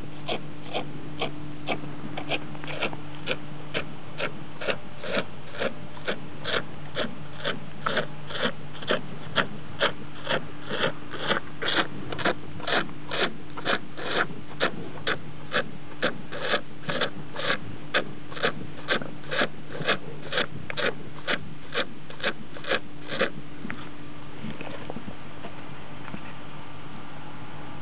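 Cow sucking milk from her own teat: regular sucking strokes about twice a second that stop a few seconds before the end, over a steady low electrical hum.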